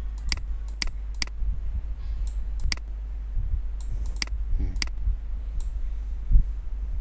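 Computer mouse clicks, about ten sharp clicks in ones and quick pairs, over a steady low hum.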